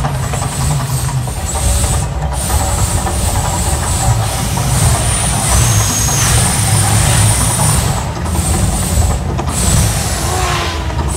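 Mirage Volcano eruption show: a loud, steady deep rumble of recorded volcanic eruption sound from the show's sound system, mixed with the hissing rush of the gas flame jets firing.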